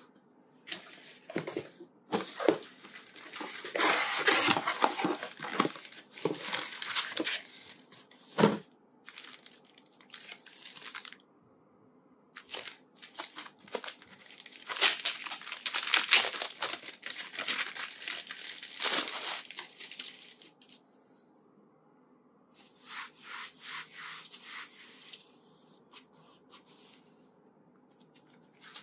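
Plastic packaging crinkling and tearing in several long bursts with short pauses, as a tablet flip case is pulled out of its plastic bag. There is a sharp click about eight seconds in.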